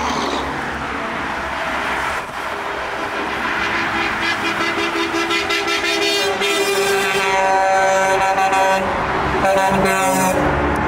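Road traffic of trucks and cars passing, with vehicle horns honking: several long, overlapping horn blasts from about the middle on and again near the end, over the steady noise of engines and tyres.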